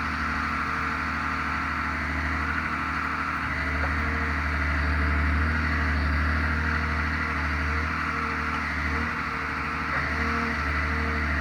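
Forestry forwarder's diesel engine running steadily while its hydraulic crane works the grapple, a low drone with a steady whine above it. It swells a little about halfway through, then eases back.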